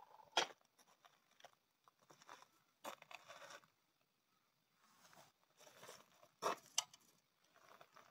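Faint knocks, clicks and scrapes of timber being handled on a sliding compound mitre saw with the blade stopped. The sharpest knocks come about half a second in, near three seconds, and twice around six and a half seconds in.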